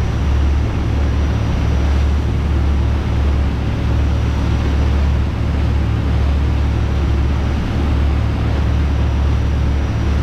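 Fishing boat's engine running steadily at trolling speed, a low drone over a steady hiss of water and wind.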